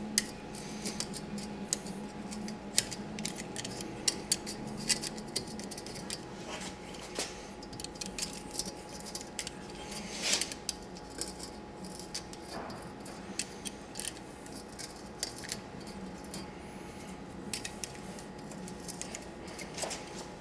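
Razor blade cutting and scraping through grip tape around the brake bolt hole of a scooter deck. It makes irregular small scratches and clicks over a faint steady hum.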